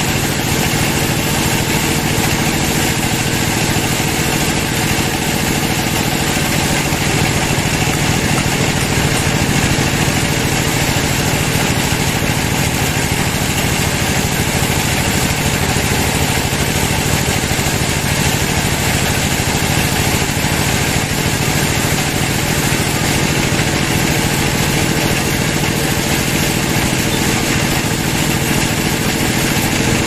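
Band sawmill running steadily, its blade sawing lengthwise through a teak log.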